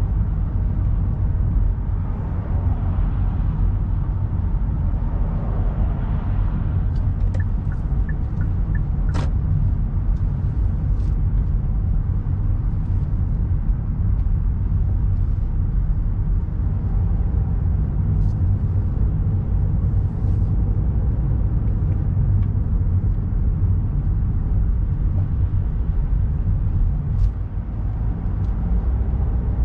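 Car driving at speed on an expressway: a steady low rumble of road and engine noise, with a few faint clicks and ticks about a quarter of the way in.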